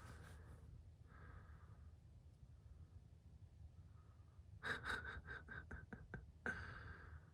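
Faint breathing close to the microphone, then a quick run of about eight sharp clicks or crunches starting just under five seconds in, with one more near the end.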